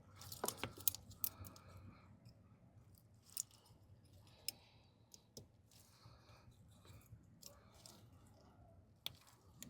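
Small sharp clicks and scrapes of a thin terminal-release tool working against a plastic multi-pin electrical connector, trying to push out a stuck terminal pin. A quick cluster of clicks comes about half a second in, then single clicks every second or so.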